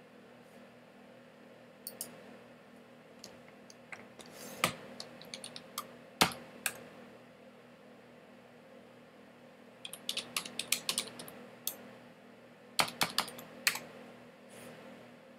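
Typing on a computer keyboard: a few scattered key clicks, then two quick bursts of keystrokes as short replies are typed out.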